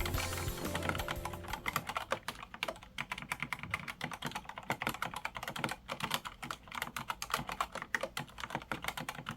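Typing on a custom mechanical keyboard fitted with Hangul keycaps: a quick, irregular run of key clicks and clacks.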